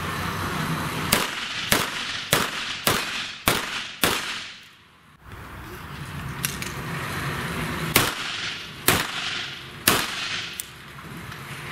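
Pistol shots fired in quick strings: six shots a little over half a second apart, then after a pause three more about a second apart, each with a short ringing echo. A few fainter shots sound in between.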